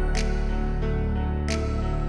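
Background music: a soft new-age instrumental with sustained tones and a light regular beat.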